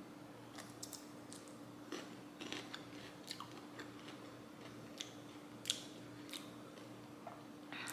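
A person biting off and chewing a piece of strawberry-flavoured pickle: faint, scattered crunchy mouth clicks, over a low steady hum.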